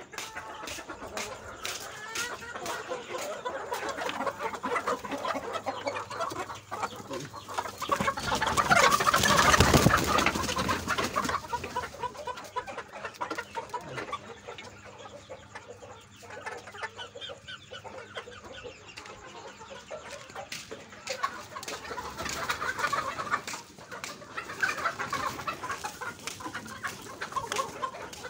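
A flock of native desi chickens clucking continuously, with a louder rush of noise lasting about three seconds a third of the way in.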